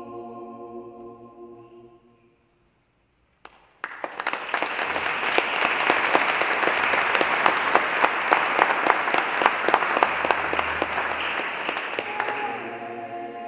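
A mixed choir's final held chord fades away, followed by a moment of silence. Then audience applause breaks out about four seconds in and dies down near the end.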